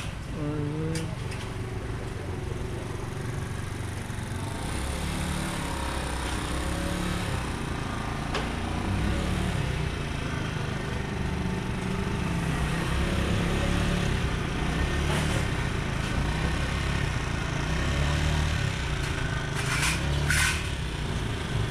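Street ambience: a steady low rumble of passing traffic, with faint voices in the background and two brief rustles near the end.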